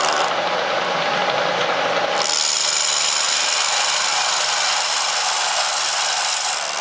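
Milling machine cutting into the metal slide of a pattern maker's vise, a steady loud grinding cut. About two seconds in the cut changes to a brighter, hissier sound.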